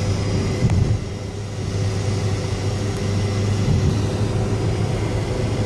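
Car interior noise while driving: a steady low drone of engine and tyres on the road, heard from inside the cabin.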